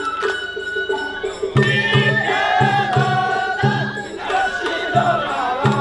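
Festival float music (matsuri-bayashi): a high bamboo flute melody over a drum that comes in about a second and a half in, beating steadily about twice a second.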